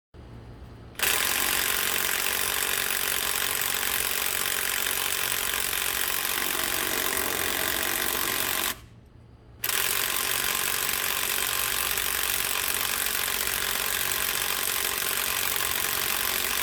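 Bosch GDS250-LI cordless impact wrench hammering on a 19 mm SUV lug nut in two long runs with a short pause between, failing to break the nut loose.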